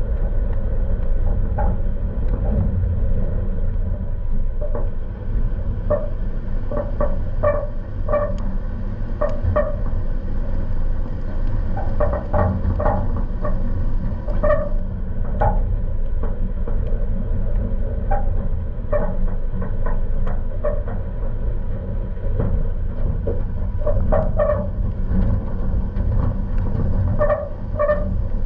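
Toyota Tacoma driving on a rough dirt trail: a steady low rumble of engine and tyres, with short high-pitched squeaks from the truck in irregular clusters.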